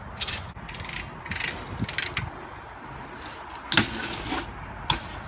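BMX bike being ridden on concrete: a run of short, irregular scrapes and knocks, the loudest about four seconds in.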